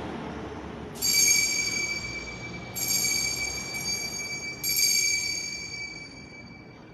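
Altar bell struck three times, about two seconds apart, each a clear, high ring that dies away slowly: the consecration bell marking the elevation of the chalice.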